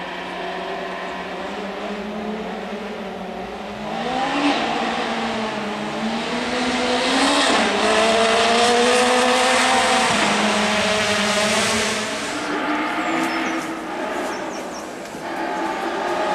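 Rally car engines at full throttle, the note climbing and dropping repeatedly with gear changes. It is loudest as a car passes about eight seconds in, and another car's engine rises near the end.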